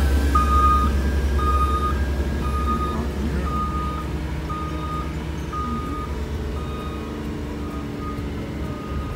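A vehicle's reversing alarm beeping about once a second, each beep a steady tone about half a second long, over the low sound of the running engine.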